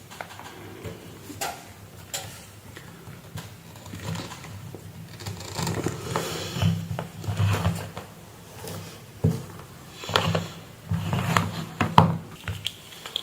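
Handling noises on a workbench: scattered clicks, taps and rustles of tools, leads and parts being moved. The noises come in two busier stretches, one around the middle and one near the end.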